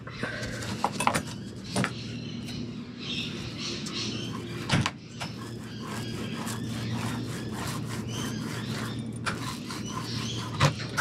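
Small laminating roller worked back and forth over epoxy-wetted fibreglass cloth to saturate it and press out air: a soft rasp with irregular clicks and taps, one sharper knock about five seconds in. A steady low hum runs underneath.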